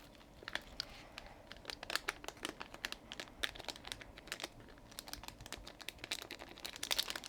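Crinkling of a small plastic bag as metallic confetti squares are shaken out of it, a run of quick irregular crackles that thickens near the end.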